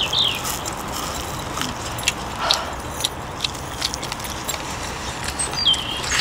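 People eating barbecued meat off the bone with their hands: scattered chewing, lip-smacking and finger-sucking clicks over a steady background hum, with a short high bird chirp near the start and again near the end.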